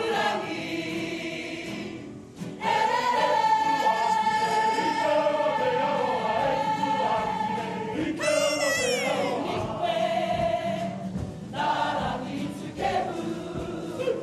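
Kapa haka group singing in Māori, many male and female voices together holding long notes. The singing drops out briefly about two seconds in and then comes back strongly, and a short high, sliding cry rises over it about eight seconds in.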